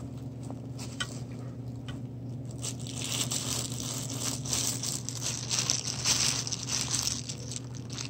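Thin plastic gloves crinkling and rustling as gloved hands scoop and handle cookie dough, busiest in the middle. A steady low hum runs underneath.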